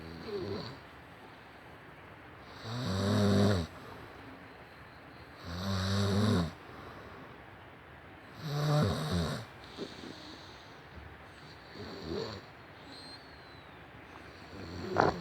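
A person snoring: six snores, roughly one every three seconds, each a low rasping rattle. The second, third and fourth are the longest and loudest, and the first and last are short.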